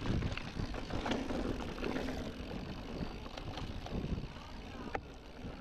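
Mountain bike rolling fast down a dirt trail: tyres running over dirt and dry leaves, and the bike rattling with frequent knocks and clicks over bumps, under a steady low rumble of air rushing past the camera. It gets a little quieter after about five seconds.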